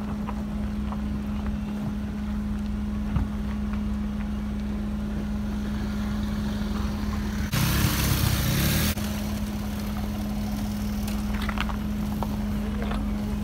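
Car driving slowly over a rough dirt road, heard from the car: a steady low engine hum with a few faint clicks and knocks. About seven and a half seconds in, a loud rushing hiss lasts for about a second and a half.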